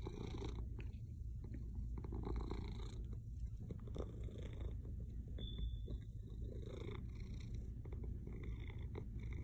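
Maine Coon cat purring hard, a steady low rumble that swells and eases every second or two.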